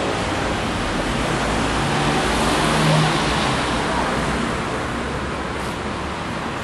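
Steady city street traffic noise, with a vehicle engine swelling and fading about two to three seconds in.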